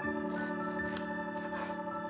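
Background music of long held chords.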